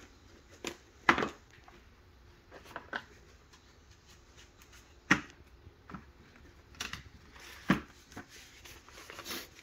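Light, irregular clicks and knocks, a handful spread a second or two apart, from hard plastic pistol cases and the cleaning tools in them being handled.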